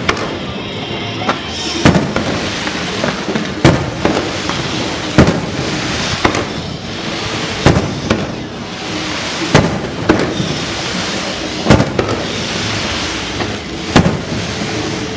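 Aerial fireworks bursting: a sharp boom every one to two seconds, about eight in all, over continuous crackling from the shells.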